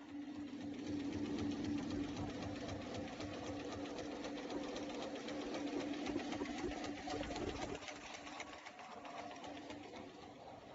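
Automatic face-mask production machine with built-in packaging unit running: rapid, even mechanical ticking over a steady hum, easing off about eight seconds in.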